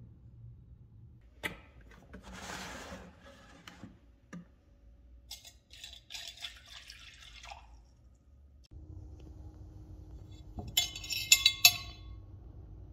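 Vinegar poured from a plastic jug into a glass dish over small metal parts, for about two seconds. Near the end comes the loudest sound: a quick run of sharp clinks of metal parts against the glass dish.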